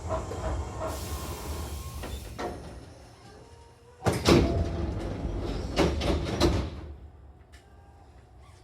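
Hankyu commuter train's pneumatic sliding passenger doors opening at a station stop. A burst of air hiss about a second in, then a loud clatter and knocks of the door leaves sliding and reaching their stops, between about four and seven seconds in.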